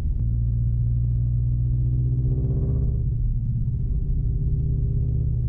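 Subaru BRZ's flat-four engine and tyres heard from inside the cabin while driving on a snowy road: a steady low rumble, with the engine tone swelling briefly about halfway through.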